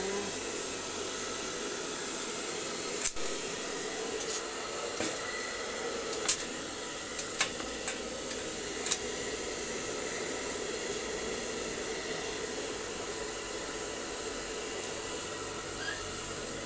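Handheld hair dryer blowing steadily on a wet husky's fur. A few short, sharp clicks stand out between about three and nine seconds in.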